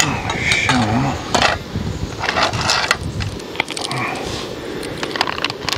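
Irregular sharp clicks and knocks of things being handled, with a brief low voice about a second in.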